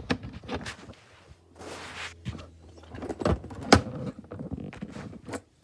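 Handling noise from a phone being turned around to flip the camera view: a run of knocks and bumps, a short rustle about two seconds in, and the loudest knock a little before four seconds.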